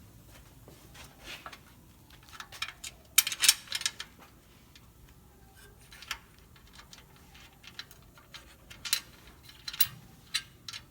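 Scattered small metallic clicks and clinks, the loudest cluster about three seconds in: 1/4 inch bolts and nuts being fitted by hand through a new cross member and the side rail of a Yeats appliance dolly.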